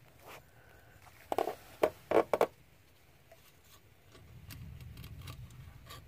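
Short handling clicks and knocks: four in quick succession from about a second and a half in, then a low, steady rumble from about four seconds in.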